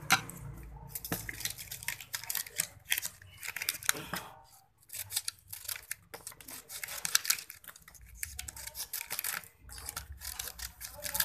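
Small scissors snipping and clicking in an irregular series as leftover ends are trimmed on a freshly rewound metal cut-off machine armature, with a brief lull about halfway.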